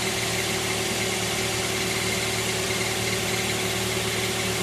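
2009 Scion xD's 1.8-litre four-cylinder engine idling steadily, with a faint repeating chirp over the engine note: the chirping noise that the owner is tracing by working the clutch.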